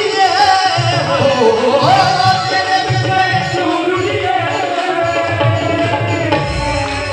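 Live devotional music played through PA loudspeakers: a tabla keeps a steady beat under a sustained melody of long held notes that glide between pitches.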